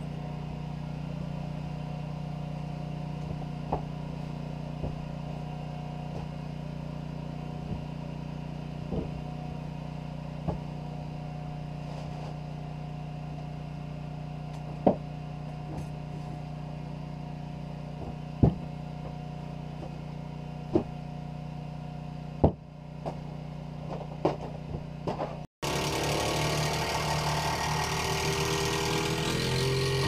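A steady machine drone, like an engine running, with scattered sharp knocks over it; about 25 seconds in, the sound cuts to a louder, noisier hiss.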